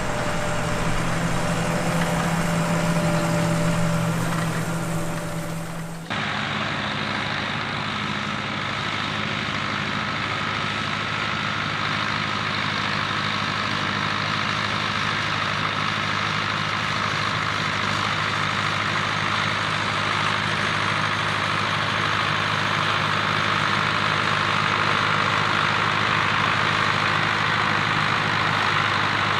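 Zetor Crystal 8011 tractor's diesel engine running steadily while ploughing, a constant drone. The sound changes abruptly about six seconds in, as at a cut between recordings, then runs on steady.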